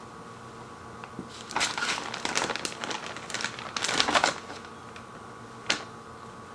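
Clear plastic bag crinkling in bursts as it is handled, for about three seconds starting a second and a half in, then a single sharp click near the end.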